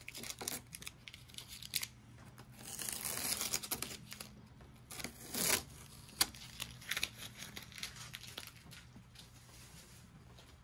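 Masking tape being peeled off a car's painted trunk lid and crumpled in the hand, in a few ripping strokes, the longest about three seconds in. A single sharp click follows about six seconds in.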